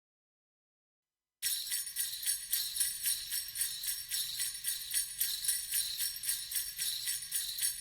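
Jingle bells shaken in a steady pulsing rhythm, starting suddenly about a second and a half in after dead silence, like the opening of a Christmas music track.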